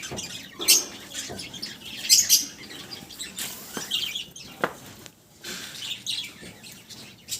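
A flock of budgerigars chattering, with many short high chirps and calls overlapping.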